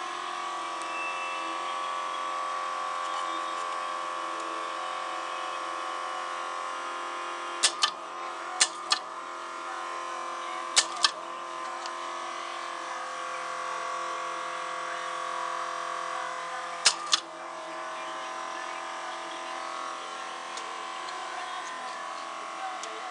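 Nitrous-system fuel solenoid being tested after an overhaul: it clicks open and shut four times, each time a pair of sharp clicks about a quarter second apart, over a steady electric hum.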